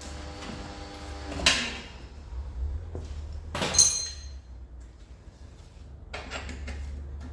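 Metal clanks from tools and suspension parts being handled: two sharp knocks, the second ringing, then a patter of small clicks and rattles near the end, over a steady low hum.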